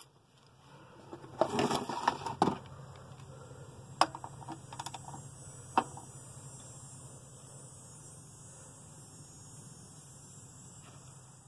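A few scattered metallic clicks and knocks from a wrench being set on the oil pan drain plug: a small cluster about two seconds in, then single sharp clicks over the next few seconds, over a low steady hum.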